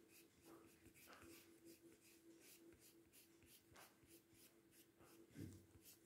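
Faint scratchy rubbing of a wax crayon on paper, repeated in quick back-and-forth colouring strokes, over a steady faint hum. A brief soft low sound comes a little after five seconds in.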